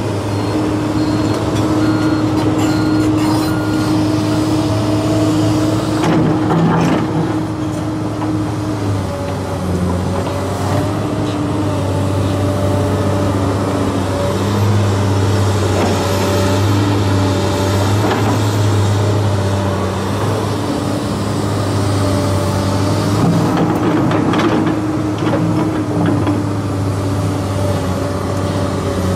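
Komatsu PC290LC crawler excavator's diesel engine and hydraulics running under load while digging. The engine note shifts up and down in pitch a few times, and the steel bucket gives scraping knocks in the dirt and rubble at intervals.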